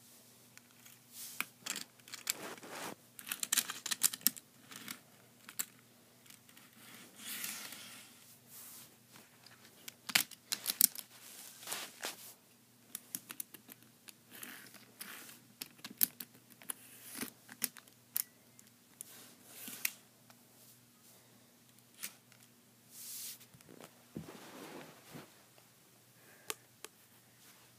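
Irregular clicks, knocks and rustling of small Amtrak Acela model train cars being picked up, moved and set down by hand on carpet, with a faint steady low hum underneath.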